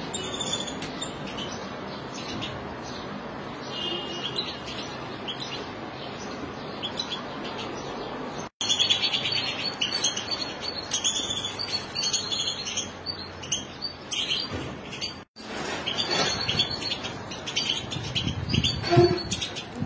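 Caged European goldfinches and other small finches chirping and twittering in many short, high calls. The sound breaks off for an instant twice, and a few low thumps come near the end.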